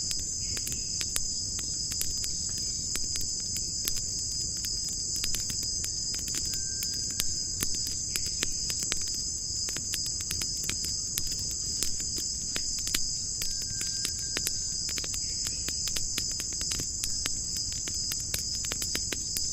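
Steady high-pitched chirring of crickets at night, with many scattered sharp clicks over it.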